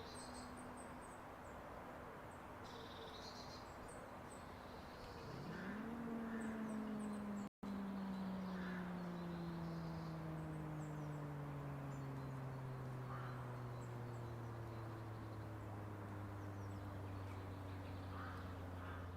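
Federal Signal 2001-SRN outdoor warning siren on a growl test: about five seconds in it spins up over about a second to a low wail, then winds down in a long, slow, falling moan. Birds chirp faintly in the background.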